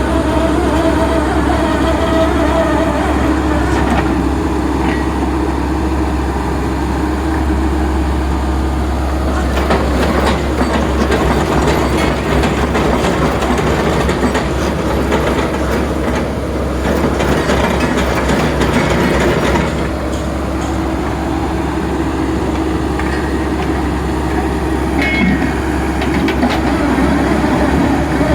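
Drill rig running as it drills slowly into bedrock: a steady machine hum with constant rattling and clatter, the clatter thickest through the middle.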